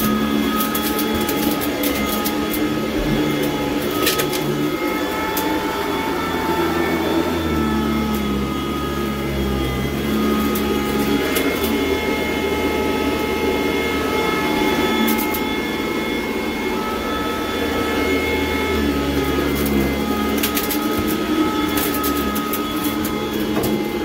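Sanitaire SC899 commercial upright vacuum cleaner running steadily over carpet, its motor whine and hum shifting a little in pitch now and then. Scattered crunching crackles of grit being picked up, in clusters near the start, in the middle and near the end.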